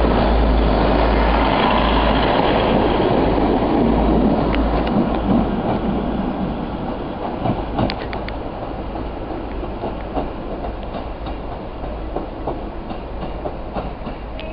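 Diesel multiple-unit passenger train pulling out past the platform, its running rumble loud at first and fading over the following seconds as it draws away, with sharp clicks of the wheels over rail joints.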